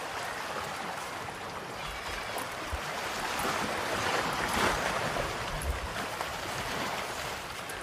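Steady rushing noise of sea surf and wind, swelling a little about halfway through.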